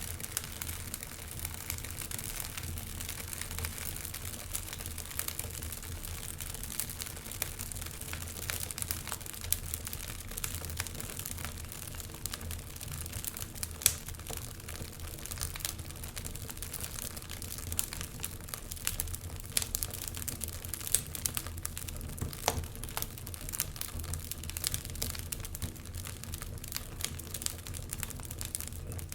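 Wood fire crackling with many small pops and one sharp, louder pop about halfway through, over a steady low rumble.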